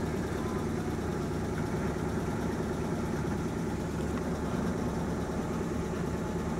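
Off-road 4x4 engine idling steadily.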